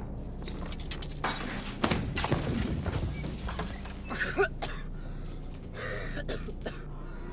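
Crashing and breaking sounds, a dense cluster of sharp impacts about two seconds in and scattered knocks later, over a low steady drone.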